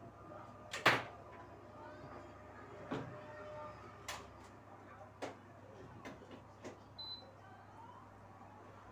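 Scattered knocks and clicks of things being handled, like a cupboard or door shutting: one sharp knock about a second in, then half a dozen lighter taps and clicks spread out, with a brief high squeak near the end.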